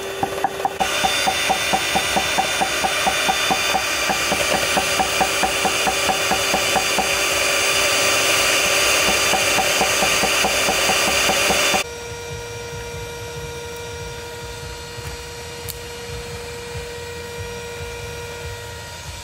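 Cleaver chopping garlic on a wooden block in quick, regular strokes, about four a second. From about a second in, an electric hand mixer whirs steadily as it whips eggs in a steel bowl. Partway through, the whir cuts off abruptly to a quieter steady hum.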